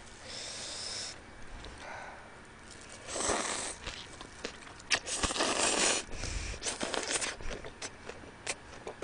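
Close-miked eating sounds: a person slurping food from a bowl held at the mouth, in two long slurps about three and five seconds in, the second the louder, with small wet mouth clicks of chewing between and after.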